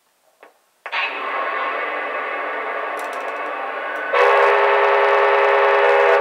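Onboard sound system of a Lionel 671 S-2 turbine model locomotive standing on the track. After about a second of near silence, a steady mechanical hum with several tones starts. About four seconds in, a louder, steady whistle with several notes at once begins and holds.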